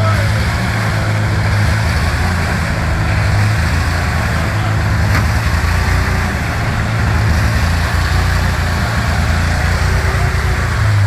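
A vehicle engine running steadily, with a deep even hum and no revving.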